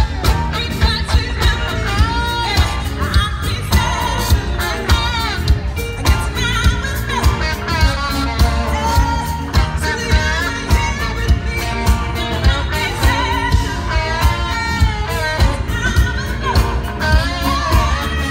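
Live band playing with a woman singing lead over drums, bass and keyboards, to a steady beat of about two drum hits a second.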